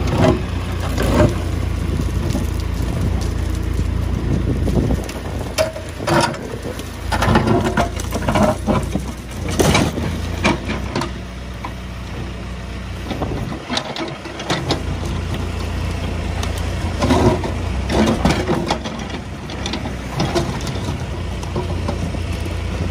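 Case backhoe loader running, with a steady low engine drone and frequent sharp clanks and knocks from the working machine.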